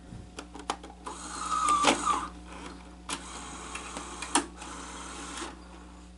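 Sony SL-HF350 Betamax VCR taking in a cassette: a few sharp clicks, then the loading mechanism's motor whirs and clatters, followed by a steadier mechanical run with a couple more clicks as the tape threads, which ends shortly before the end.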